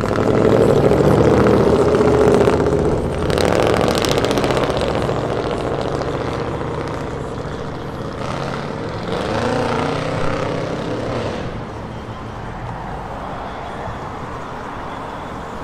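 Road traffic: vehicle engines running as trucks and cars drive past, loudest in the first few seconds. About eight seconds in, one engine accelerates with a rising pitch, then the traffic sound fades.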